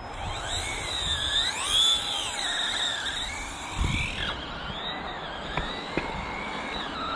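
Electric motor of a Remo Hobby S-Max 1/16 RC monster truck whining, rising and falling in pitch as the throttle is worked, over tyre rumble on concrete. There is a dull thump just before the four-second mark and a few sharp clicks after it.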